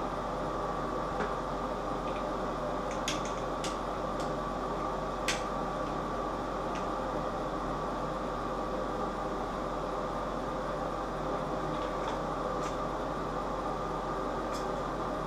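A steady mechanical hum with a faint constant whine in it. Over it come a few light clicks and taps of plastic bidet and toilet-seat parts being handled, the sharpest about five seconds in.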